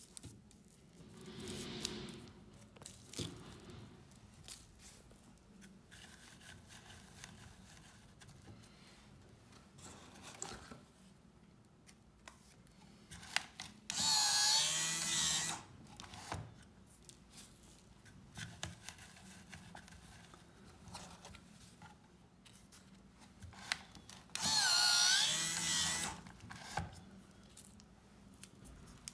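Electric slim cigarette-filling machine's motor whirring twice, each run about a second and a half with a wavering pitch, as its slide pushes tobacco into a slim tube. Small clicks and rustles of tobacco and tubes being handled come between the runs.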